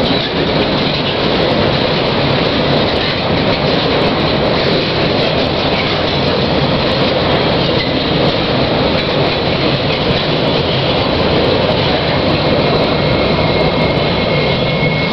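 Loaded coal train wagons rolling steadily past on the rails, a continuous rumble of wheels on track. A thin, high wheel squeal comes in near the end.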